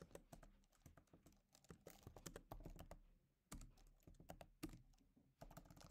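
Faint typing on a computer keyboard: runs of quick key clicks with short pauses between them.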